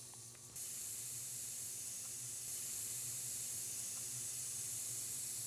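Steady hiss of compressed air flowing through an airbrush, starting abruptly about half a second in. The airbrush is clogged with dried acrylic paint that is being dissolved and blown clear with acetone.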